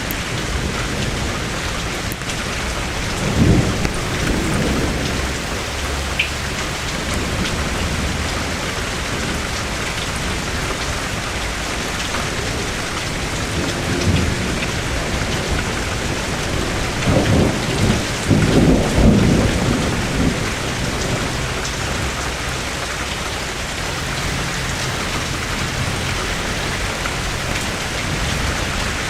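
Steady heavy rain on surfaces, with thunder rumbling twice: a short roll a few seconds in and a longer, louder rumble a little past the middle.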